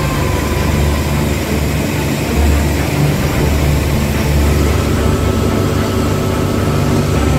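A heavy engine running steadily with a low rumble.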